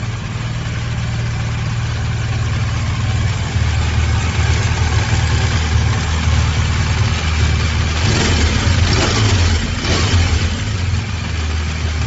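BMW 1200 twin-cylinder motorcycle engine idling steadily, getting louder from about three and a half seconds in.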